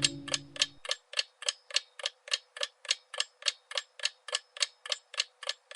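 Steady clock-like ticking, about three and a half ticks a second. Under the first second, a sustained low musical tone carries over and then cuts off abruptly.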